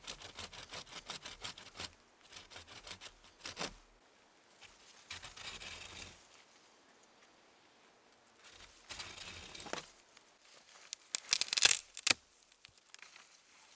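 A bare hacksaw blade, held by one end, sawing through a fresh green hazel stick about 2–3 cm thick: rasping back-and-forth strokes of metal teeth in wood. It starts with a run of quick even strokes, then goes on in short spurts with pauses between them, and the loudest burst comes near the end as the cut nears completion.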